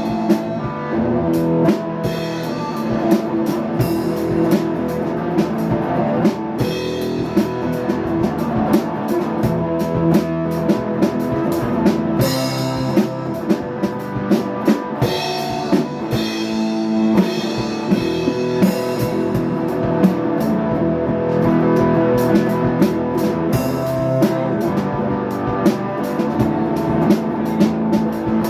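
Rock music played on a drum kit and guitar, with a steady beat of drum and cymbal hits under sustained guitar chords.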